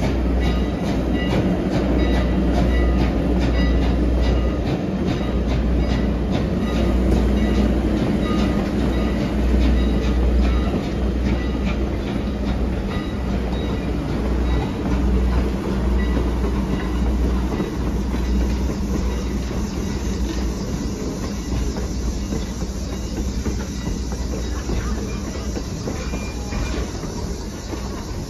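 Heritage-railroad wooden passenger coaches rolling slowly past, a steady low rumble with the wheels clicking regularly over the rail joints; the clicking thins out in the second half.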